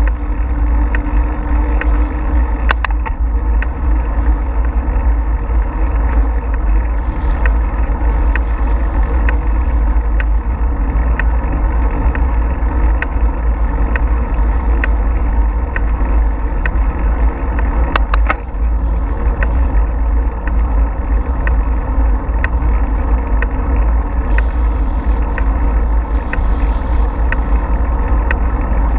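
Steady wind rumble on a bicycle-mounted GoPro's microphone, with the noise of the bike rolling over a paved trail. Faint ticks repeat regularly throughout, with a sharper click about three seconds in and another about eighteen seconds in.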